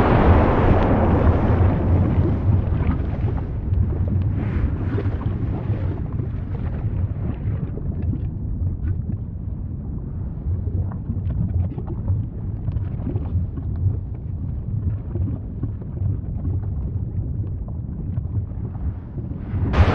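Volcanic eruption: a deep continuous rumble, loudest at the start and easing off over the first few seconds, with faint crackles, then a sudden loud blast right at the end.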